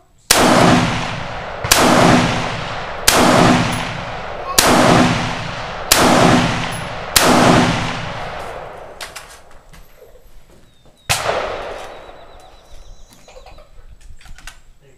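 AR-15-style semi-automatic rifle firing six shots about a second and a half apart, each cracking sharply and ringing away over about a second. After a pause of about four seconds comes one more shot, with a few faint clicks in between.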